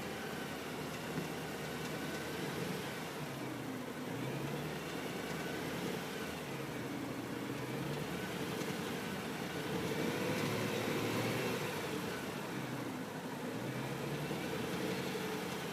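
2010 BMW M3's V8 engine running warm, its speed rising and falling gently several times, with a ticking from the bottom of the engine that sounds like something loose inside.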